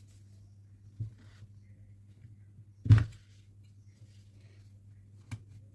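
Battery-pack parts being handled on a workbench: a soft knock about a second in, a louder knock about three seconds in, and a sharp click near the end, over a steady low hum.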